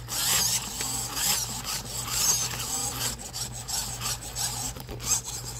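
Cloth rubbing and scraping over the phone's microphone as the robot arm drags the phone across bedding, in uneven scratchy sweeps over a steady low hum.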